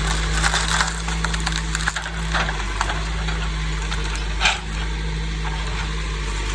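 Trees and brush cracking and splintering as a heavy machine pushes them over, with several sharp snaps and the loudest about four and a half seconds in. Underneath, the machine's diesel engine runs steadily.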